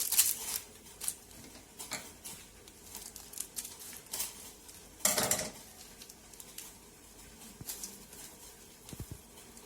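Seasoning sachets and a plastic noodle cup being handled, with scattered light clicks and rustles and one louder rustle about five seconds in.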